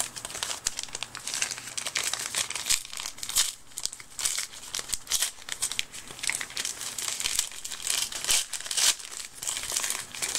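Gift wrapping paper crinkling and tearing as hands peel it open, in quick, irregular rustles that go on throughout.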